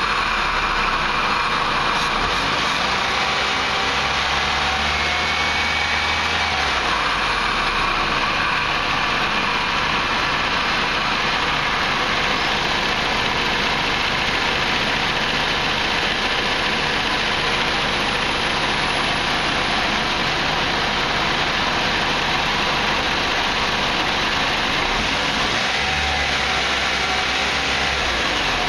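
Chrysler PT Cruiser's turbocharged engine running with the intake hose off the manifold, a steady loud air-and-engine noise with a few light revs near the start and again near the end; no whoop.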